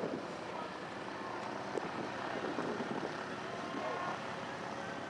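Airfield background: the steady drone of distant aircraft engines, with faint voices of people nearby and some wind on the microphone.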